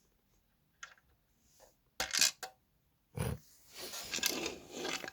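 Clicks, knocks and clatter of hard plastic and metal speaker parts being handled: a few light clicks, then sharp knocks about two seconds in, then a busier run of clattering and rustling.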